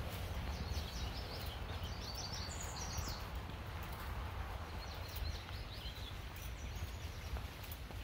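A songbird singing two quick phrases of rapid high notes, one about half a second in and a shorter one about five seconds in, over a steady low rumble and footsteps on a dirt trail.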